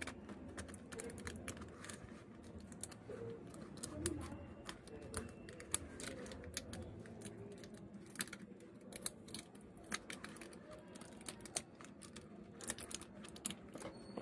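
Quiet, irregular small clicks and taps as a spudger and fingertips press and seat parts in a Realme C12 phone's open frame, coming more often near the end.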